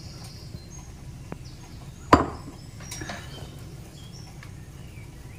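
A metal spoon scraping and spreading dry ground almond and cinnamon filling in a metal baking pan. The spoon knocks sharply against the pan about two seconds in and taps more lightly about a second later, over a low steady hum.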